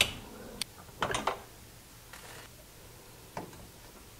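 Metal tongs and a serving spoon clinking against a crock pot and a rice pan: a quick cluster of clinks about a second in, a faint scrape, and a single knock near the end.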